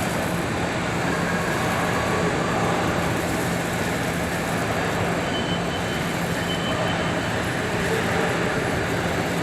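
Steady, loud mechanical background noise with a constant low hum, like machinery running nearby.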